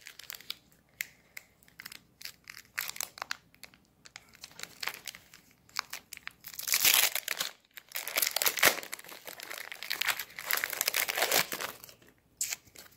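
Foil wrapper of a Pokémon trading card booster pack crinkling and tearing as it is ripped open by hand, in irregular crackles that are loudest about seven seconds in and again a little later.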